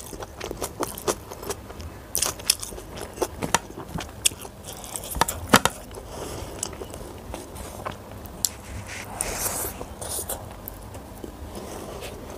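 Close-miked eating sounds: wet chewing and lip-smacking with many sharp mouth clicks, thickest in the first half, then a softer rustle as fingers scrape and mix through rice on the plate.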